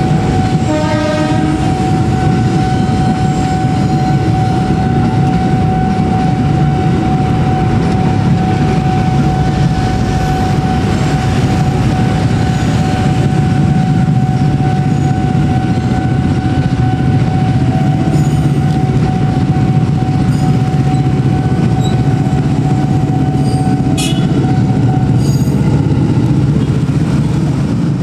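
Electric commuter trains rumbling and clattering through a level crossing, with a short train horn blast about a second in. The crossing's warning signal sounds as one steady tone and stops about a second before the end, as the crossing clears.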